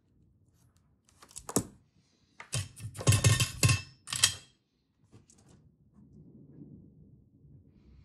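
A few clicks, then a second or two of clattering knocks as soldering tools are set down on a wooden desk, followed by faint handling noise.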